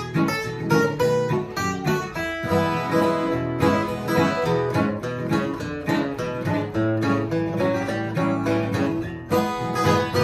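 Solo steel-string dreadnought acoustic guitar played as an instrumental: quick picked single-note runs mixed with strummed chords, the notes ringing over one another.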